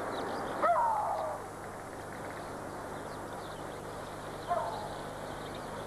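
A bird calls twice: a falling cry lasting under a second near the start, and a shorter, fainter one about four and a half seconds in, over a steady background hiss.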